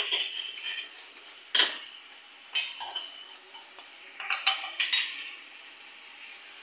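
Metal perforated spatula knocking and scraping against a metal kadhai while stirring masala frying in oil. There are single sharp clinks about a second and a half and two and a half seconds in, then a quick run of four clinks between four and five seconds in.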